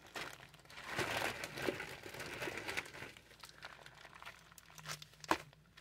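Crinkly packaging being handled and rustled, loudest over the first three seconds and softer after, with a single sharp click about five seconds in.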